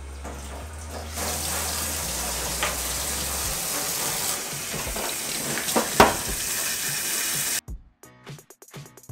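Kitchen tap running onto a lobster being rinsed in a stainless steel sink: a steady splash of water, with a few sharp knocks about five to six seconds in. The water sound cuts off suddenly near the end and background music with a beat follows.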